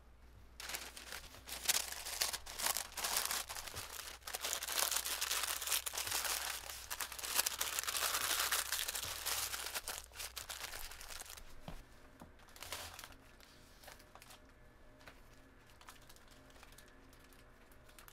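Paper crinkling and rustling as it is folded tightly around a sandwich, stopping about twelve seconds in, followed by only faint handling sounds.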